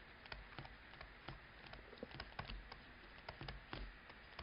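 Faint, irregular taps and clicks of a stylus on a tablet screen while words are handwritten, several a second, over a low steady hiss.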